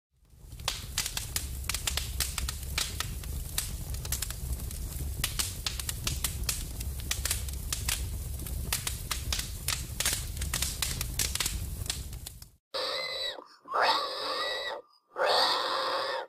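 Fire crackling: dense, irregular crackles over a low rumble for about twelve seconds, then it stops. Three short, high-pitched pig squeals follow.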